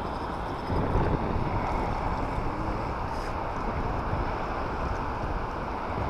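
Wind buffeting the microphone, a steady rumbling rush that gusts louder about a second in.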